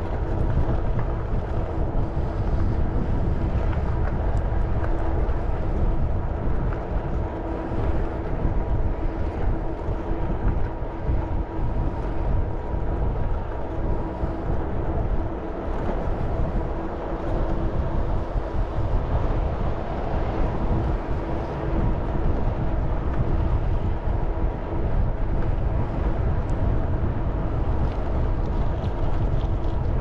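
Wind rushing over the microphone while riding a bicycle, with a steady hum running underneath.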